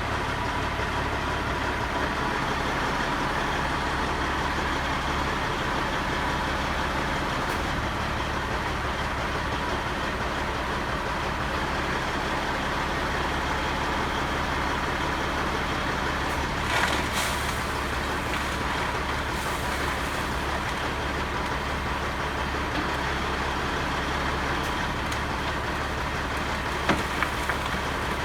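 Sterling tri-axle dump truck's diesel engine running steadily while the truck dumps asphalt millings, a low drone with a steady high whine over it. A brief rush of noise comes about two-thirds of the way through, and a few sharp knocks near the end.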